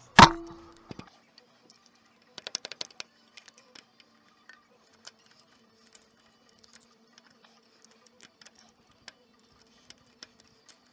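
A sharp metallic clang on the steel of a hydraulic cylinder and blade, ringing for under a second, followed by a quick run of light metal clicks and scattered taps from hand tools, over a faint steady hum.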